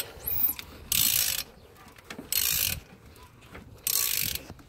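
Ratchet wrench clicking in three half-second bursts, about a second and a half apart, on its back strokes as the 2.7 L V6's crankshaft is turned over by hand to bring the timing chain marks round.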